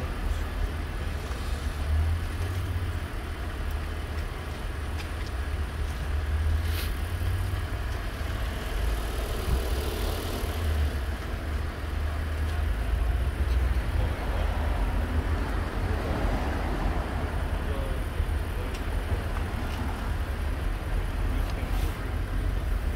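Steady low rumble of outdoor background noise, uneven in strength throughout, with a few faint clicks.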